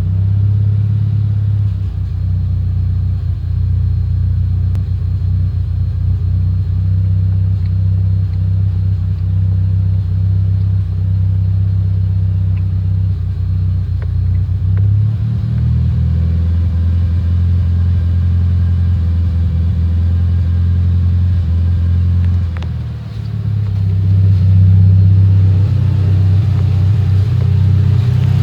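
Car engine idling roughly after a tune-up, with a terrible noise that the owner believes comes from the cylinder head. The idle speed shifts about halfway through and sags briefly about three-quarters of the way through.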